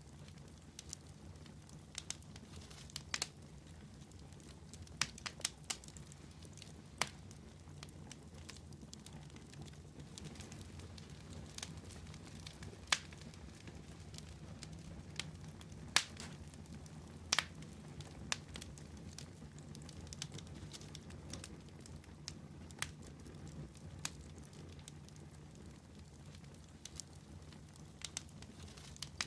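Wood campfire burning, irregular sharp crackles and pops over a low steady rumble of the flames.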